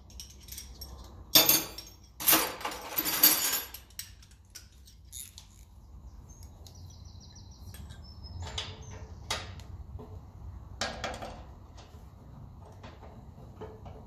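Metal hand tools clinking and clattering while bolts are fitted on a tractor: loud clatters about a second and again two to three and a half seconds in. Later come lighter clinks and a short run of quick ticks.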